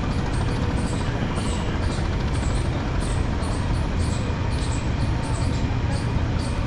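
Low steady rumble of wind on an action camera's microphone while walking, with light footstep ticks about two to three times a second.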